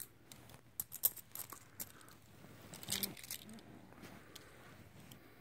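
Half-dollar coins clinking against each other as they are handled and stacked in the hand: a quick run of sharp clicks in the first couple of seconds, a denser clatter about three seconds in, then softer handling.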